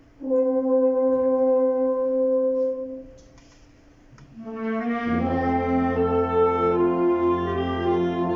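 Concert band playing: a single note held for about three seconds, a short pause, then the full band comes in with a sustained chord over a low bass.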